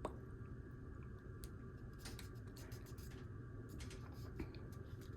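Faint, scattered clicks and light rustling from hands handling a small plastic handheld audio recorder.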